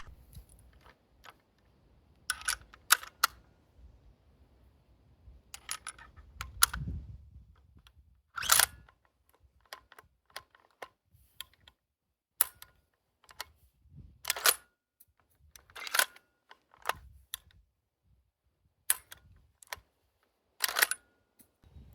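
Bolt-action gas-powered airsoft Kar 98K replica, full metal with a wooden stock, being worked by hand: sharp metallic clicks and clacks of the action, one at a time or in short groups with pauses between, the loudest about a third of the way in and near the end.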